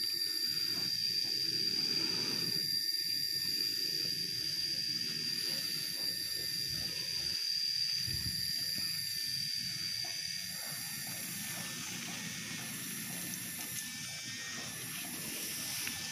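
A large colony of giant honeybees (Apis dorsata) buzzing as they are smoked on the tree trunk. Over the hum runs a steady high-pitched whine that fades out about ten seconds in, and a high hiss that swells and fades every couple of seconds.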